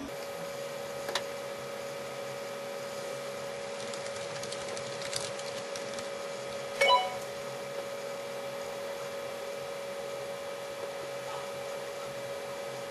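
Steady electrical hum over faint background hiss, with a couple of faint clicks and one short pitched blip about seven seconds in.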